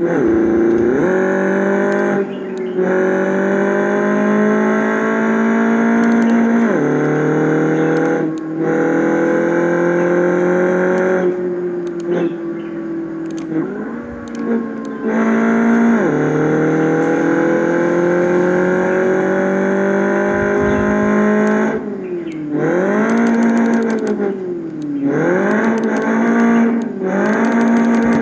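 Diesel engine pulling through the gears: its note climbs slowly for several seconds, then drops sharply at each shift, about four times. Near the end it is revved up and down several times in quick succession.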